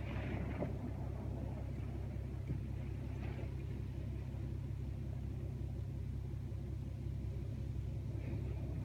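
Strong wind buffeting the microphone: a steady low rumble, with a couple of brief hissing swells as it gusts.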